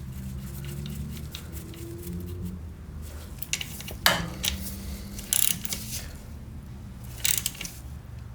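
Metal hand tools clinking and knocking, with a few sharp clicks, the loudest about four seconds in, over a steady low hum.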